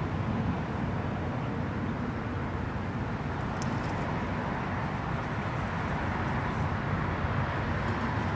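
Steady low outdoor background rumble with a faint hum, unchanging throughout.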